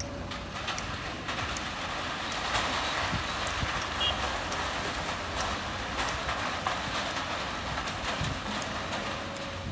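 Sand and stones pouring from a SANY hydraulic excavator's bucket into a truck bed: a steady rushing rattle dotted with stone clicks, over the low rumble of the excavator's engine. It swells a few seconds in and eases toward the end.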